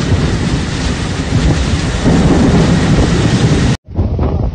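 Storm wind and rain buffeting a phone microphone: a loud, rough rushing noise heaviest in the low end. It cuts off abruptly near the end and gives way to a quieter, thinner wind noise.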